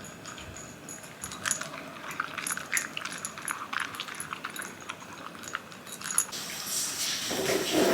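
A Shiba Inu moving about, with a string of light clicks and taps from its claws on a hard floor, followed by a louder noisy sound near the end.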